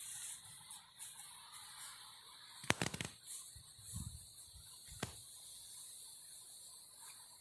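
A few faint sharp clicks, a quick cluster about three seconds in and a single one at five seconds, with a soft low thump between them, over a steady faint high hiss.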